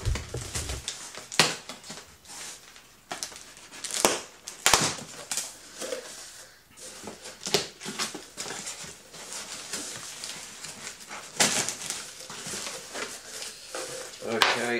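Cardboard box being unpacked: packing tape slit and ripped, flaps pulled open and paper rustling. It comes as an irregular string of sharp rips and scrapes, the sharpest about a second and a half in, around four seconds, and near the end.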